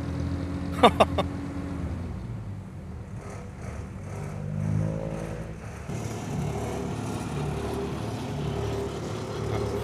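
Diesel dump truck engine running with a steady low drone, swelling a little about five seconds in. Two short knocks sound about a second in.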